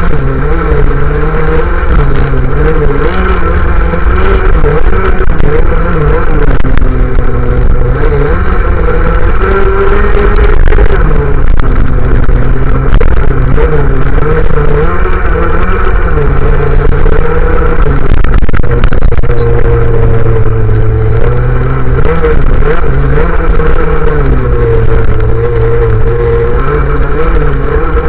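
MBK Nitro racing scooter's engine running hard, heard from on board, its revs rising and falling again and again, with the engines of other mopeds around it.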